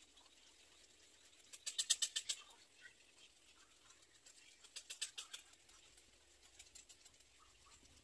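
Black-crowned night herons at the nest giving rapid trains of sharp clicking ticks, about ten a second: a loud burst about two seconds in, a second burst around five seconds, and fainter ticking near the end.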